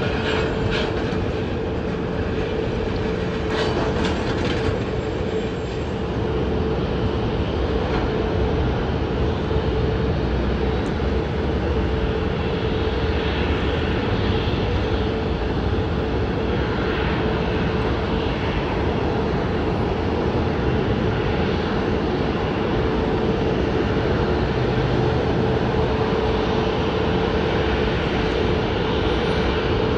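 Jet engines of a Boeing 737 airliner at low power, a steady loud roar with a held mid-pitched hum, as the aircraft slows on the runway and taxis.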